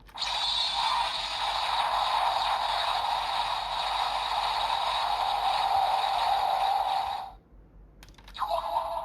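A DX Ultraman Max key toy's electronic sound effect plays through its small speaker for about seven seconds, then cuts off. It starts right after a button click. After another click near the end, a short new sound begins.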